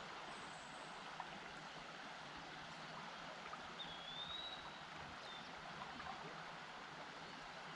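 Faint, steady rush of flowing river water, with a bird giving one short slurred whistle about four seconds in.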